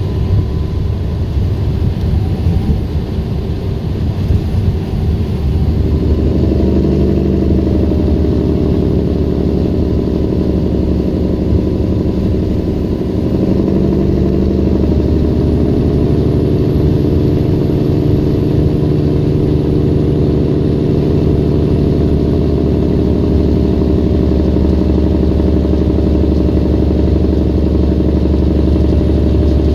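Diesel engine and road noise of a 2011 Peterbilt semi truck pulling a loaded grain trailer, heard inside the cab. The engine sounds rough and uneven for the first several seconds, then settles into a steady running note at road speed.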